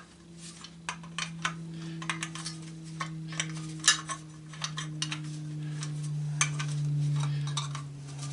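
Scattered light metallic clinks and taps as gas-stove burner parts and channel-lock pliers are handled, over a steady low hum.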